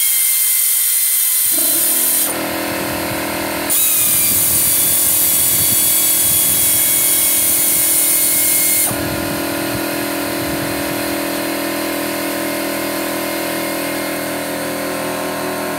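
A steady machine whir with a strong high hiss, like a running power tool, going without a break. It is louder for the first couple of seconds and again from about four to nine seconds in.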